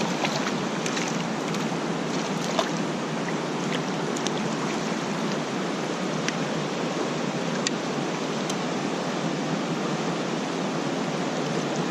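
Fast-flowing creek water running high: a steady, even rush, with a few faint clicks scattered through it.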